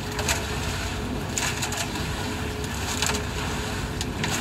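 Lightburn cement mixer running: a steady rumble with a faint hum, broken by irregular knocks and crunching as wet concrete tumbles in the turning drum.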